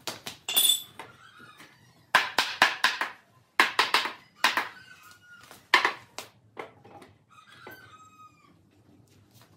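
Rapid hammer-like knocks on a pine table frame, in several bursts through the first six or seven seconds, some with a metallic clink. A few short calls that fall in pitch sound between them.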